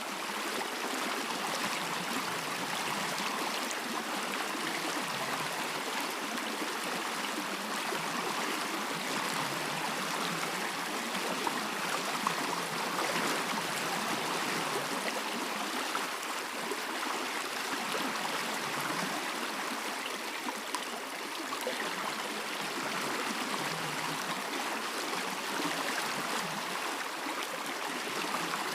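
A stream flowing steadily, an even rush of moving water.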